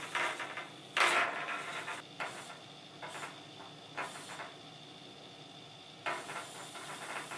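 Small wheeled tabletop swarm robot driving and turning on the table, its tiny geared motors whirring in short bursts of a second or less, set off by being flicked and tapped by hand. A longer burst comes near the end.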